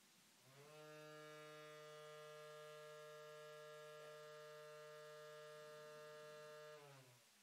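Renfert SILENT powerCAM EC dental dust extractor running its vibration-cleaning cycle on switch-on: a faint, steady buzzing hum that rises in pitch as it starts about half a second in, holds, then winds down in pitch and stops near the end.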